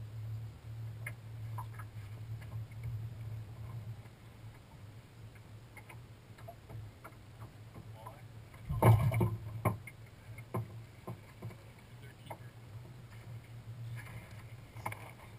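Steady low hum of a bass boat's bow-mounted electric trolling motor, with scattered light clicks from a fishing reel as line is worked. About nine seconds in comes a loud thump with rustling, the loudest sound here.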